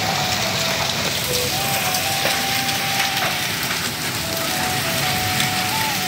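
Heavy rain falling on a wet paved yard: a steady hiss of spattering drops. A thin melody of background music runs over it.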